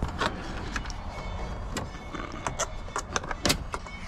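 Irregular small clicks and scrapes of gauge wire being fed and tugged through a car's plastic A-pillar trim and dash panel.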